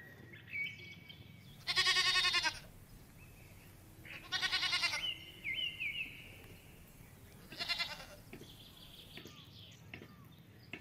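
A goat bleating three times, each call quavering. The first, about two seconds in, is the longest and loudest, and the last, near eight seconds, is the shortest. Small birds chirp faintly between the calls.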